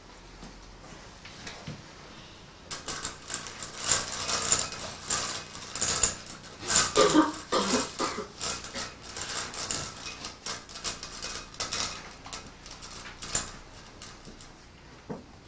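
Glass marbles clinking and clattering against each other and the glass bowl as a hand stirs and scoops through them: a rapid, uneven run of bright clicks starting about three seconds in and thinning out near the end.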